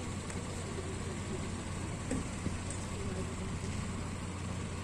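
Taekwang walking tractor's small engine idling steadily with a low, even hum while the machine stands still.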